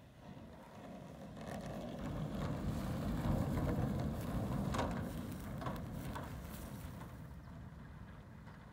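AVI e-SWAN electric ultralight taxiing on grass: a low rushing noise from its propeller and motor that swells to its loudest about three to four seconds in as it passes close, then fades, with a few light clicks.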